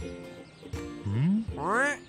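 Light background music with a steady plucked pattern, over which a cartoon character makes two short wordless vocal sounds about a second in: a low upward glide, then a louder one that rises higher and dips at the end.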